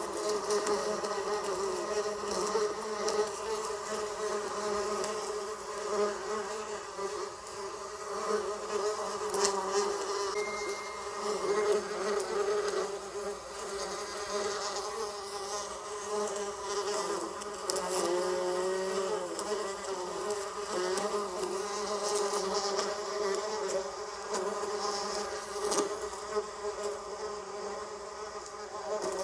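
Bees buzzing steadily, several wing-beat tones layered and wavering slightly in pitch, one dipping briefly about two thirds of the way through.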